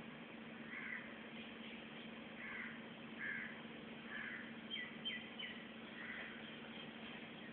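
Outdoor birds calling: a series of about five short harsh calls, with three quick high descending whistles about five seconds in, over a steady low hum.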